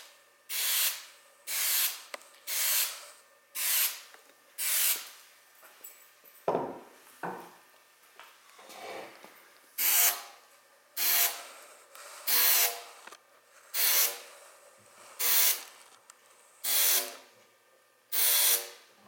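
Aerosol can of 3M Spray 90 contact adhesive sprayed in short hissing bursts about a second apart. There are five bursts on an oar grip, a pause with a few handling knocks, then seven more bursts into the end of a composite oar shaft: the second coat of adhesive going on.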